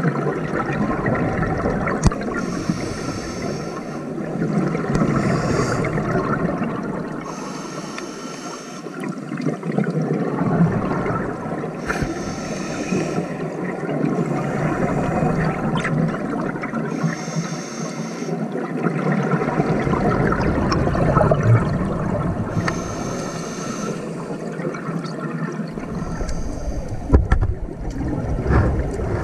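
Scuba breathing through a regulator, heard underwater on an action camera's microphone: a short hiss on each inhale every few seconds, with longer gushes of exhaled bubbles in between.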